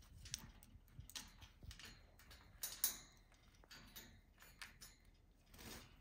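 Faint, irregular clicks and taps from a green-cheeked conure moving about its wire cage, the sharpest about halfway through, with a brief rustle near the end.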